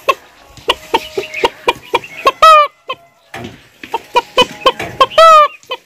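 A person imitating a clucking hen with the voice: two runs of quick clucks, about four a second, each ending in a drawn-out squawk.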